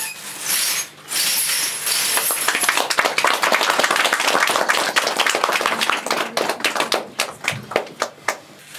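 Audience applauding, a dense patter of clapping that thins out to scattered claps near the end.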